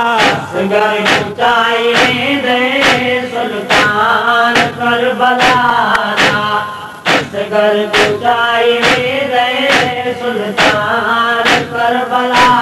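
A man chanting a noha, a Shia mourning lament, in a sustained melodic voice over a regular sharp beat struck a little more often than once a second.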